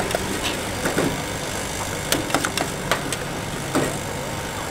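Metal ladle clinking and scraping against a stainless steel pot as sweet corn kernels are stirred and scooped: a handful of short sharp clinks, several close together about two seconds in. A steady low hum runs underneath.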